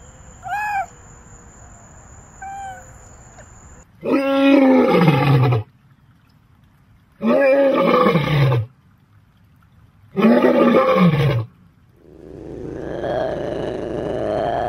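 Male lion roaring: three long, loud roars, each falling in pitch, about three seconds apart. Before them come two short high mewing calls from a smaller cat, and near the end a long, steady call from an ocelot builds up.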